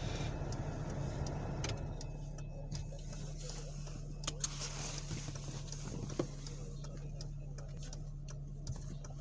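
Car cabin noise: a steady engine and road hum while the car rolls up to a railroad crossing, with faint sharp ticks from the crossing's warning bells ringing as the gates come down.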